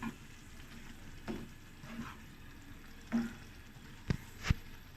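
A prawn curry sizzling gently in a pan while a utensil stirs it, scraping the pan about once a second, then two sharp taps on the pan's rim near the end.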